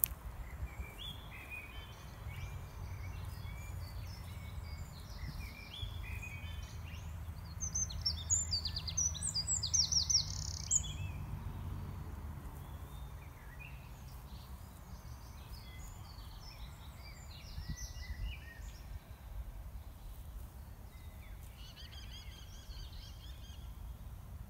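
Songbirds singing in short chirping phrases, the loudest a rapid run of high notes about eight to eleven seconds in, over a steady low rumble.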